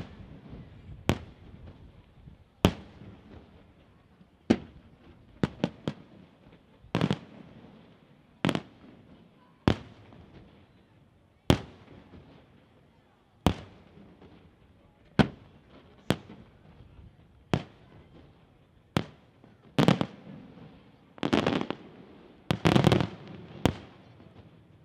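Aerial firework shells bursting, a sharp bang every one to two seconds, each trailing off in an echo. Near the end the bangs come in a quicker cluster with crackling.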